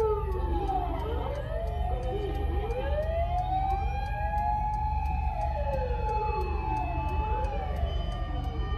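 Wailing sirens of several Japanese emergency vehicles, fire engines among them, rising and falling in slow sweeps that overlap and fall out of step as the vehicles pass. Heard from inside a car, over a steady low rumble.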